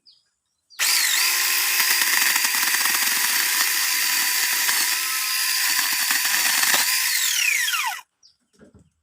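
Cordless battery mini chainsaw running under power, its electric motor and chain whining steadily as it cuts through a piece of wood. It starts about a second in and, near the end, the motor winds down with a falling whine.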